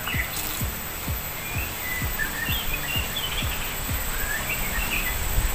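Background music with a steady low, thumping beat, with birds chirping over it.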